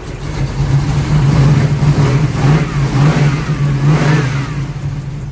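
Cammed, LS-swapped V8 in a G-body Monte Carlo SS being revved: the choppy, loping exhaust note climbs soon after the start, holds high for a few seconds and falls back toward idle near the end.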